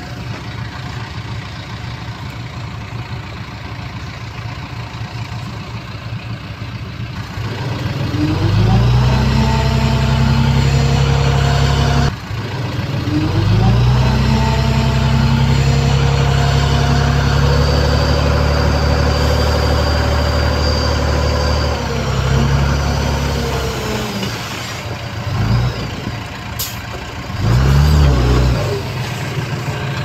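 Heavy construction machine's diesel engine running, then revving up hard about eight seconds in and holding at high revs for long stretches, with a sudden break around twelve seconds. It drops back near the twenty-two second mark and gives one more short rev near the end.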